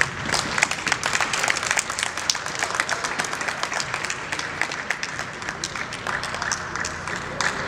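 Spectators in a gym clapping: dense, irregular applause.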